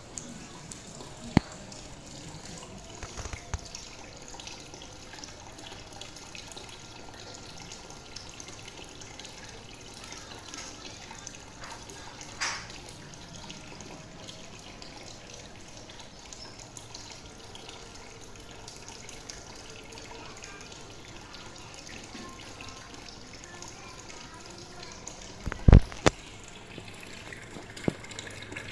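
Water trickling steadily in a home goldfish aquarium, with a few light clicks and one sharp knock near the end.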